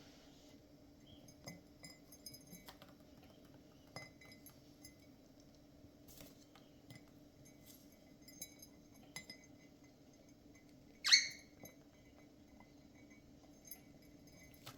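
Scattered light clicks and clinks, with one short, loud cockatiel call about eleven seconds in.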